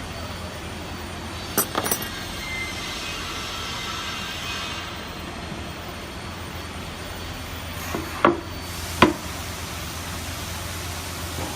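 A few sharp knocks from parts being handled during assembly: two close together about two seconds in, and two louder ones under a second apart near the end, over a steady low hum.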